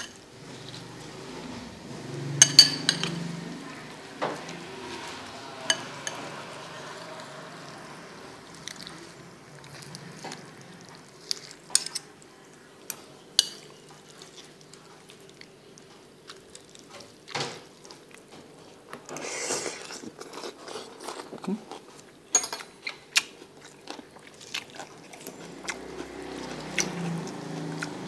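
A metal fork clinking and scraping against a white bowl as noodles, herbs and bean sprouts are stirred together, in scattered sharp clicks that are loudest about two and a half seconds in, with a brief swishing noise about two-thirds of the way through.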